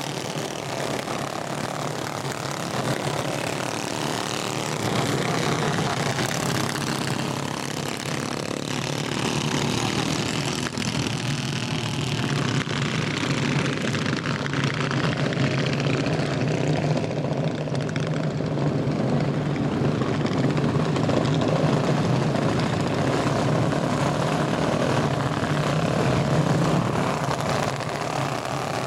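Small engines of a field of racing karts buzzing together as the pack laps a dirt oval, swelling a little a few seconds in.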